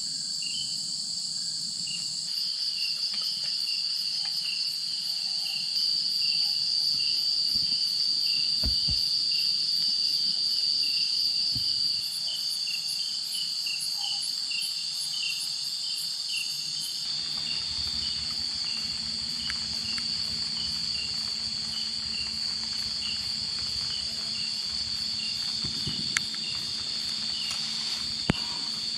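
Night insects chorusing: a steady high-pitched drone with a pulsing chirp repeating under it, the chorus shifting a few times. Two small ticks near the end.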